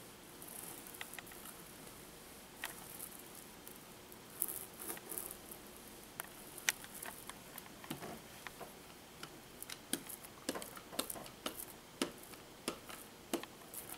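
Faint, irregular light clicks and taps with soft rustling from hand work, as resin-wetted fiberglass cloth is pressed and smoothed onto a foam model plane's fuselage. The clicks come more often in the second half.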